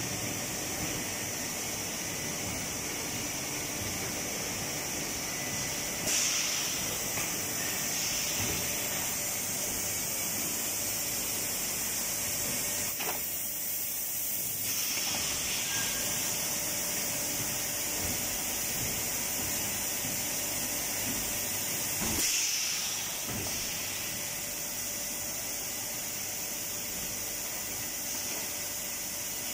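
MP80D three-layer, three-head extrusion blow molding machine running with a steady mechanical hum. Two short bursts of compressed-air hiss come from it, about six seconds in and again about 22 seconds in.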